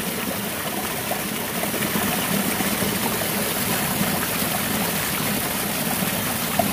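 Stream water rushing and splashing as it cascades over boulders in a small falls, a steady, even sound.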